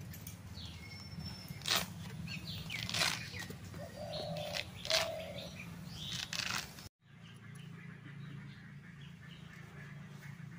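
Birds chirping and calling over a steady low background hum, with a few sharp clicks in the first half. The sound cuts out for an instant about seven seconds in, then faint chirps go on.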